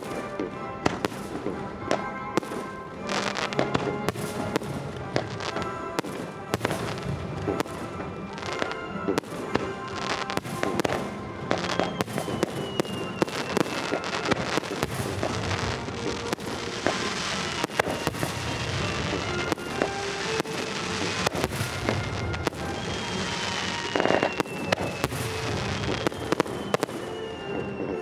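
Fireworks display: a dense run of aerial shells bursting with sharp bangs and crackling, and several whistles falling in pitch. Background music plays underneath.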